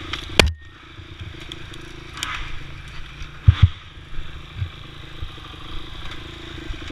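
Dirt bike engine running steadily at low revs while the bike pushes through branches and over logs, with sharp knocks and scrapes; the loudest comes about half a second in, and two more come close together about three and a half seconds in.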